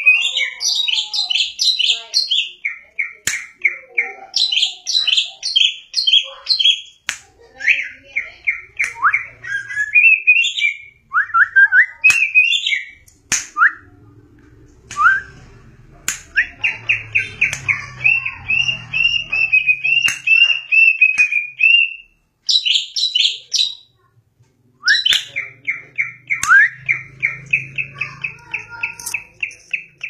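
Caged male cucak ijo (greater green leafbird) singing continuously in full song ('gacor'). It gives rapid runs of high chirps and whistled notes, including one long, fast trill in the middle, broken by two short pauses.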